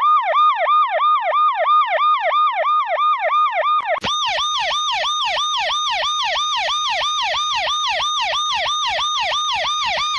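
Electronic emergency-vehicle siren sweeping rapidly up and down, about four times a second. About four seconds in, it cuts to another recording of the same fast sweep, brighter and with a steadier level.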